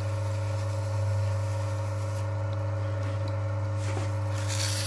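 Electric motor of a friction oil-testing machine running steadily with a low hum, spinning the test roller while abrasive paper is held against it to clean off a scuff mark. A scraping hiss rides on the hum and grows louder near the end.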